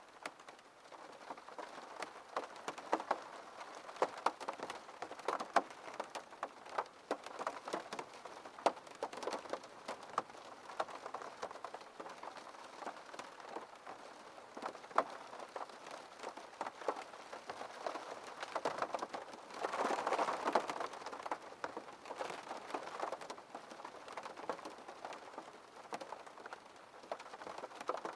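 Rain falling on a window pane: a steady hiss with many single drops tapping sharply on the glass at irregular intervals. The rain falls heavier for a couple of seconds about two-thirds of the way through.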